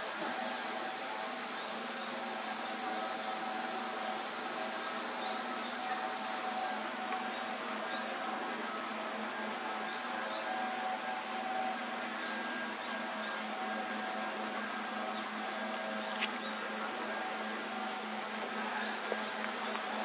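Insects chirring steadily in a high, unbroken drone, with faint short chirps repeating every second or so, over a low steady hum.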